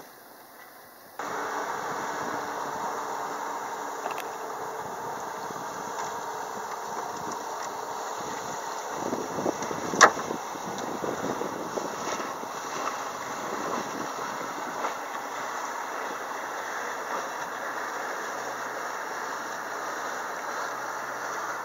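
A motor running steadily, starting abruptly about a second in, with a single sharp click about ten seconds in.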